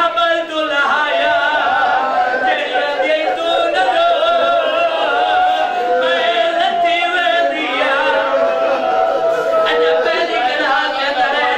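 A man's voice chanting a mourning lament in long, wavering held notes, loud and amplified through a microphone. It is the sung, melismatic style a zakir uses at the emotional peak of a majlis recitation.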